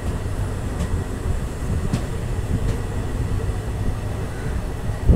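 Trains running side by side on adjacent tracks, heard from the open doorway of a moving coach: a steady low rumble of wheels on rail, with a few sharp clicks and a heavier thump near the end.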